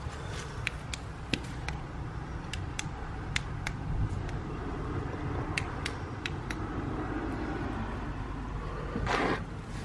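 Steady low background rumble, with scattered faint sharp ticks and clicks. A brief louder rustle or scrape comes about nine seconds in.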